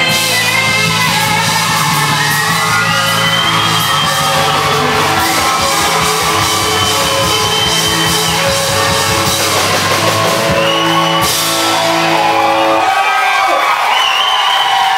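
Live rock band with a woman singing long held notes over electric guitar, bass and drums, the crowd shouting and whooping along. The band stops near the end and the crowd starts cheering.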